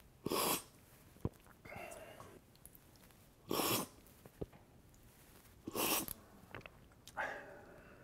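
Three loud, short slurps of coffee, a sip from each of three small paper cups about two to three seconds apart, with softer breathing between them and a couple of light knocks.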